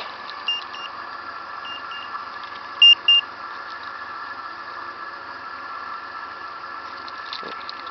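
Dodge Caravan engine idling steadily, with three pairs of short high electronic beeps in the first three seconds as its aftermarket remote starter's fob is pressed, the last pair loudest.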